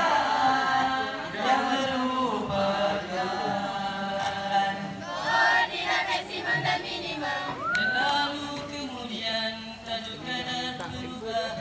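A group of young voices singing together without instruments, a chant-like song of held notes.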